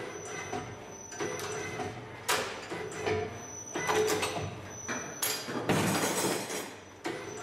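Eurobend G-Star 4-10 F CNC wire bending machine working through its cycle: the servo-driven bending head swings and bends wire in repeated whirring strokes and sharp clacks, about one every second or two. A faint steady high whine runs beneath.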